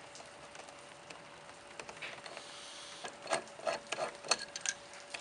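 Hand rivet tool setting a new crush rivet in a car's rear wing end plate: a quick run of sharp clicks and snaps in the second half.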